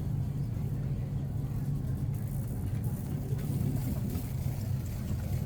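Shopping cart being pushed across a store floor, its wheels giving a steady low rumble.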